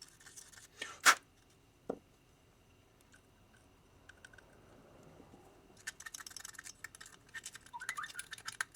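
Carburetor parts being handled on a workbench: a sharp click about a second in and a fainter tap near two seconds, then a run of quick scratchy clicks and rustling over the last few seconds.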